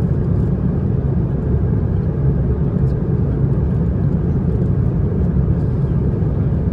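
Steady low drone inside the cabin of an Airbus A330-900neo in flight: noise from its Rolls-Royce Trent 7000 engines and the airflow over the fuselage, even and unbroken, with most of its weight in the low rumble.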